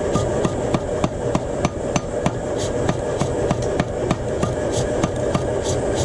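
Even, rapid hammer blows forging a steel knife blank, about three to four strikes a second, over a steady hum.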